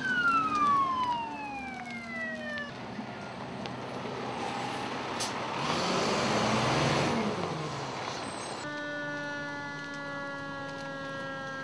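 Fire truck sirens winding down in pitch: the first falls quickly over two or three seconds. About halfway through, a fire department ladder truck drives past close by, its engine and tyre noise swelling and fading. From about nine seconds in, another siren glides slowly down.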